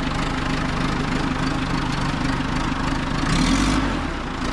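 Backhoe loader's diesel engine running steadily at idle, briefly louder with a hiss for about half a second a little after three seconds in.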